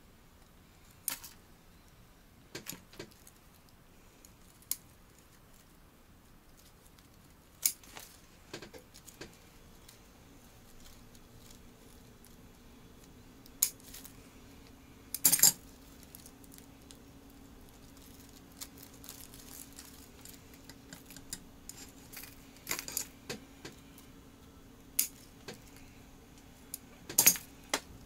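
Bonsai pruning shears snipping twigs off a Korean hornbeam bonsai: a dozen or so sharp clicks at uneven intervals, a couple of them doubled. A faint low hum comes in about ten seconds in.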